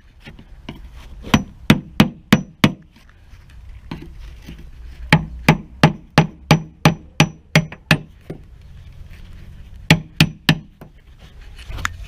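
Hammer striking a chisel driven in behind the steel rubbing strake of a narrowboat hull, prising the rusted strake away from the hull. The blows come in three quick runs of about three a second, with pauses between, and each strike rings briefly.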